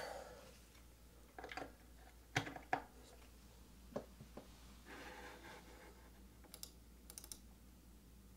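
A few faint clicks and taps in small scattered clusters, with a soft rustle midway: hands at the computer desk testing a newly installed desk-mounted USB hub.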